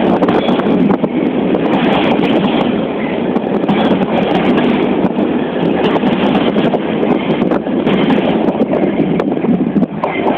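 Class 66 diesel-electric locomotive, with its two-stroke V12 engine, running with its train on the move: a loud, steady rumble with scattered sharp clicks from the wheels over the rails.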